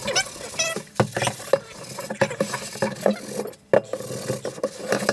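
Scourer scrubbing the inside of a new cast iron skillet in a stainless steel sink, in quick, uneven scraping strokes. This is the one-time hard scrub that strips factory residue and muck before the first seasoning.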